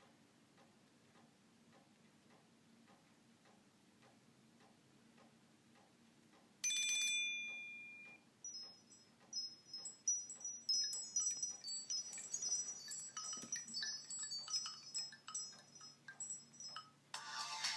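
Nokia X3-02 phone speaker playing a built-in chime-style ringtone. Faint steady ticking for about six seconds gives way to a single bright chime strike that rings out. A tinkling, wind-chime-like run of high notes follows, and louder music starts just at the end.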